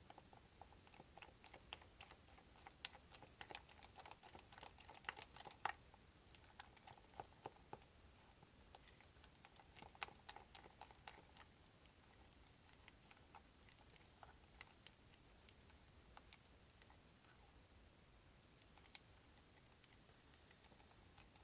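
Faint clicking and tapping of a spoon stirring thick soap batter in a plastic measuring cup, busiest over the first six seconds and again around ten seconds in, then only scattered ticks.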